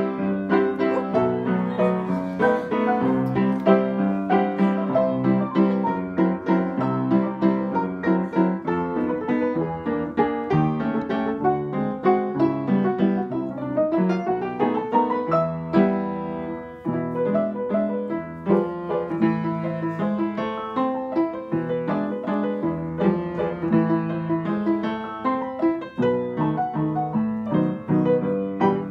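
Upright piano played four hands as a duet, steady chords under a melody. About halfway through, a run of notes climbs up the keyboard, followed by a brief dip in loudness before the playing carries on.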